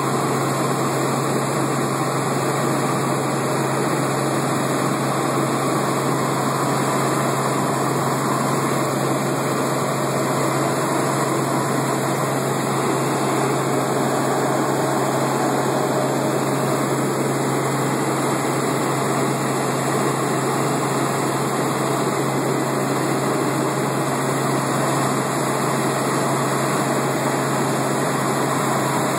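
Helicopter running: a constant, loud engine and rotor noise with a steady low hum, heard from inside the cabin.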